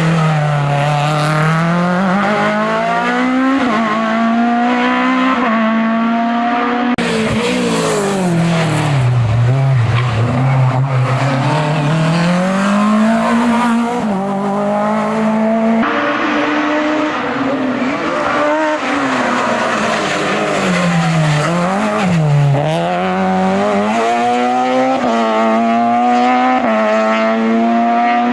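Race car engine at full throttle on a hillclimb run. It revs up through the gears, the pitch stepping down at each quick upshift, and it drops low twice as the car brakes and downshifts for corners before pulling up again.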